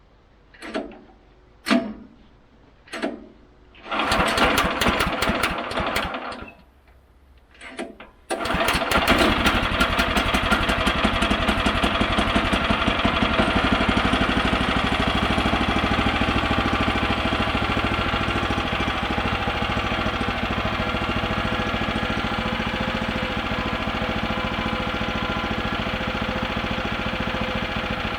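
Small gas engine of a bandsaw sawmill being pull-started cold on choke: a few short pulls, a brief catch that runs about two seconds and dies, then after one more pull it starts about eight seconds in and keeps running steadily.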